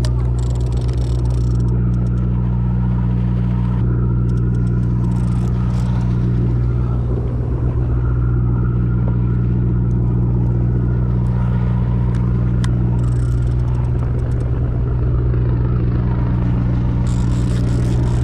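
A boat's engine running steadily, a constant low drone, with light clatter now and then.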